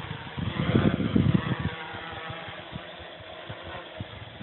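Quadcopter's 2282-12 brushless motors whining steadily as it hovers low, with wind buffeting the microphone in low rumbling gusts, strongest about a second in.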